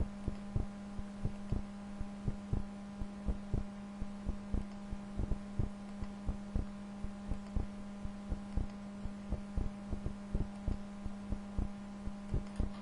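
Computer mouse clicking repeatedly, a few clicks a second, as points are placed one after another in digitizing software. A steady electrical hum runs beneath the clicks.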